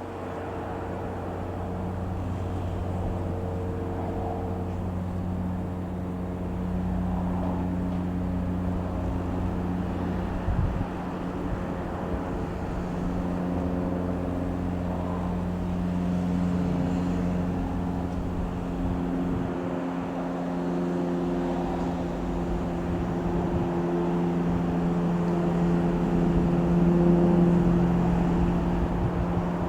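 Piper PA-28-161 Warrior's four-cylinder Lycoming piston engine and propeller running steadily, with a drone that shifts slightly in pitch and gradually grows louder over a low rumble. A brief knock comes about ten seconds in.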